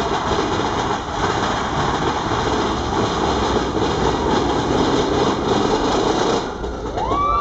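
Mine-train roller coaster running along its track, a loud, steady rumble and rush of wheels. Near the end, rising whoops from the riders begin.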